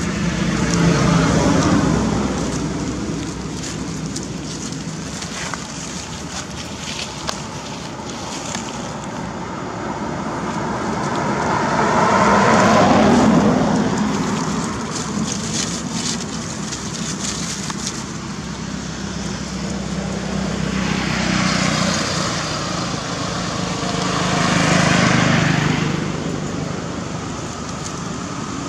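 Road traffic: several vehicles go by in turn, each one swelling up and fading away over a few seconds. The loudest pass comes about halfway through.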